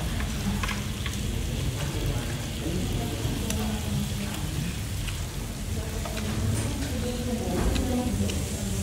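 Meat and squid sizzling on a tabletop grill pan, a steady hiss, with scattered light clicks of tongs and chopsticks against the pan.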